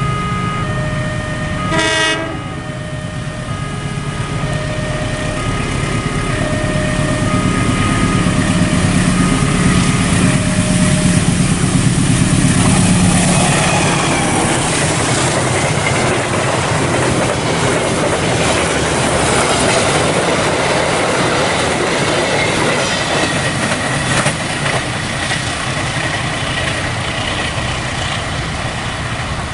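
Diesel locomotive hauling a passenger train past at speed. A horn sounds in the first seconds while the engine's deep rumble builds. From about halfway the locomotive gives way to the steady rush and rail clatter of the coaches going by.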